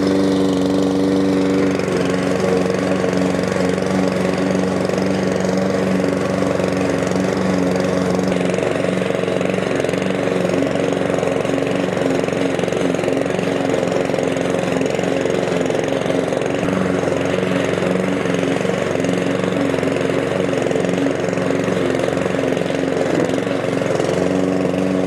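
Cobra MX484SPCE lawn mower's 173cc petrol engine running steadily while the rotary mower cuts and collects grass at its lowest cutting height.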